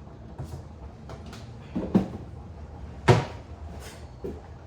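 Kitchen clatter: a sharp knock about two seconds in, a louder one about three seconds in, and a lighter knock near the end, like containers set down or a cabinet door closing.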